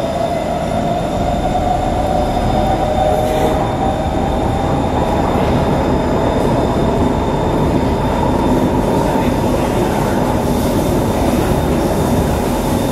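Kawasaki C151 metro train running at speed, heard from inside the passenger car: a steady rumble of wheels on track. Over it a high tone rises slightly in pitch during the first few seconds and then fades.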